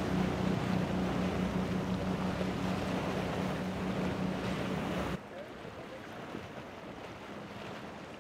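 Outboard motor droning steadily as a center-console boat runs through choppy, breaking surf, over wind buffeting the microphone and splashing water. About five seconds in the sound cuts abruptly to a quieter rush of wind and water without the engine tone.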